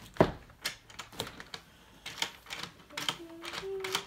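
Door lock hardware clicking: a series of irregular sharp clicks and knocks, the loudest about a quarter second in, as a newly fitted lock's latch and deadbolt are worked from the inside. The latch does not line up with the door frame, so the door does not close tight.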